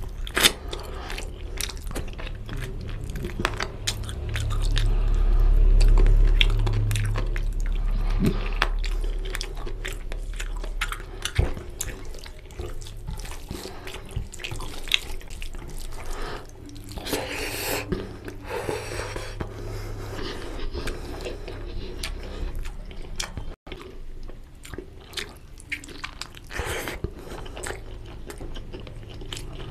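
Close-miked wet chewing and lip smacking of rice and oily curry eaten by hand, with squelching as the fingers mix rice and curry on a steel plate. A louder wet stretch comes about two-thirds of the way through.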